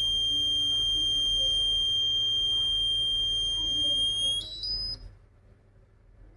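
Fire alarm sounding one continuous high-pitched tone. About four seconds in the pitch jumps higher, then the tone cuts out for over a second before starting again right at the end.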